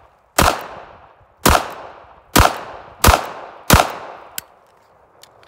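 A stock Ruger LCP .380 pocket pistol fired five times in a slow string, shots roughly a second apart or a little less, each report dying away quickly. A light click follows about half a second after the last shot.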